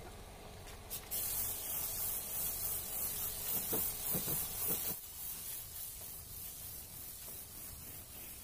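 Compressed-air paint spray gun hissing as it sprays paint onto a car door. The hiss starts abruptly about a second in and drops to a quieter hiss about four seconds later.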